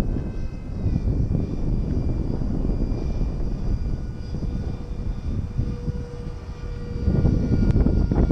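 Wind buffeting the microphone, with the faint, steady whine of the Freewing A-10 model jet's twin electric ducted fans in flight, shifting slightly in pitch. A stronger gust near the end, with a short sharp click.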